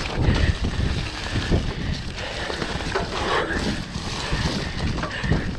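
Enduro dirt bike engine running with an uneven low rumble, mixed with wind buffeting the microphone.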